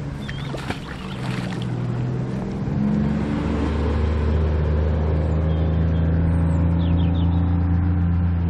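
A magnet on a rope is thrown and lands in the canal with a short splash about a second in. From about three seconds in, a nearby engine runs with a steady low drone that grows louder and then holds at an even pitch.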